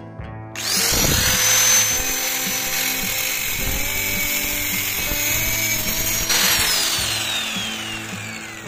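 Handheld electric angle grinder starting up about half a second in and running at speed with a high whine, its disc grinding against the hardened steel point of a lathe live center to re-true the damaged tip. Around six seconds in it is switched off and the whine falls steadily as the disc spins down. Background music plays underneath.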